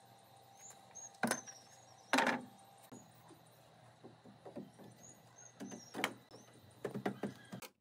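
Wooden railing panel knocking against the timber of a pallet-wood dog house as it is handled and set into place: a few sharp wooden knocks about a second in and at two seconds, smaller taps, then another knock and a quick cluster of knocks near the end.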